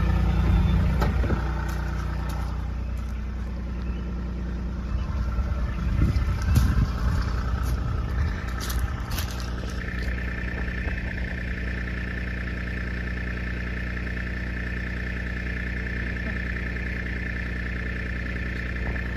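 Vehicle engine running steadily at low revs, with a few louder knocks and rattles about six to seven seconds in. From about ten seconds in, a steady high thin tone joins it.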